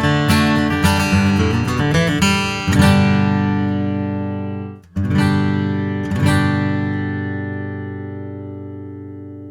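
Gibson J-200 Art Deco jumbo acoustic guitar being played. There are about three seconds of strummed and picked notes, then a chord is struck and left to ring. The sound cuts out briefly just before five seconds, then two more chords are struck and ring out, fading slowly.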